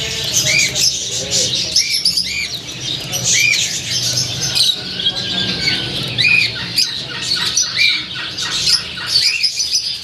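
Caged finches, Gouldian finches among them, chirping together without pause: a busy mix of short chirps that rise and fall in pitch, with a louder call repeating about once a second.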